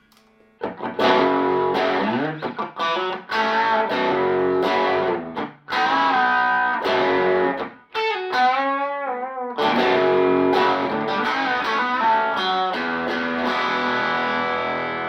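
Electric Fender Telecaster played clean through a Fender '57 Tweed Twin tube amp with no effects: picked chords with brief stops, a wavering bent note about halfway, then chords left to ring out near the end.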